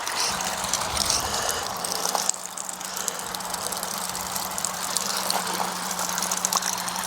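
Water rushing through and out of an electric pressure washer with its lance removed, as the pump is primed before first use; a steady hiss of flowing water, with a steady low hum underneath from about two seconds in.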